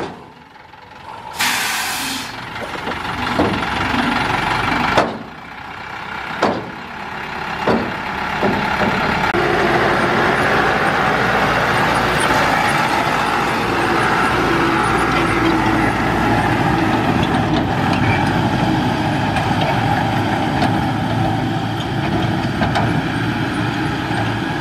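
Thaco Forland dump truck's diesel engine running, with a short hiss of air about a second and a half in and a few sharp clanks as the steel tipper body comes down. From about nine seconds the engine pulls steadily as the truck moves off.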